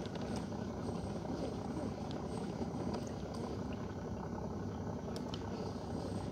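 A small boat's engine running steadily, an even low sound with no change in pace, with a few faint clicks over it.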